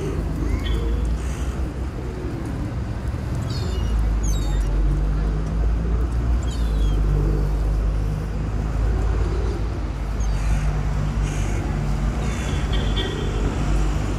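Steady low rumble of street traffic or an idling engine, louder from about four seconds in, with short high bird chirps here and there.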